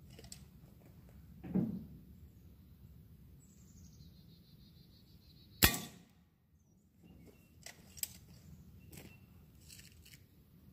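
An air rifle pellet strikes an empty aerosol can with a single sharp, short metallic crack about five and a half seconds in, knocking the can over. A duller thump comes earlier, a few small ticks follow, and birds chirp.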